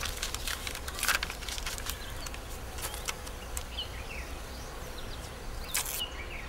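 Masking tape and paper being handled: a few short rips and rustles as strips are pulled off the roll and pressed onto paper posters, the loudest about a second in and near the end. Behind them is a steady low outdoor hum with faint bird chirps.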